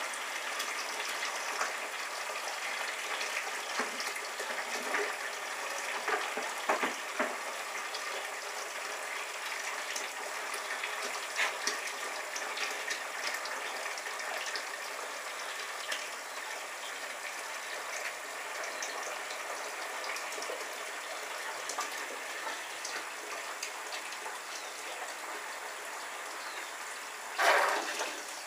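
Hot strike water running steadily into a picnic-cooler mash tun, an even gushing fill. Shortly before the end comes a brief louder bump.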